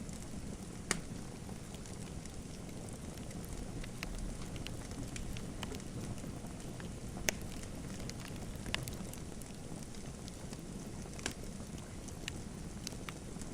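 Wood fire in a fireplace crackling: a steady low rush of flame with scattered sharp pops, a few of them louder than the rest.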